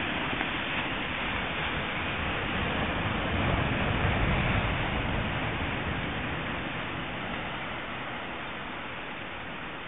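Ocean surf: a steady rush of waves washing in, which swells about four seconds in and then slowly dies down.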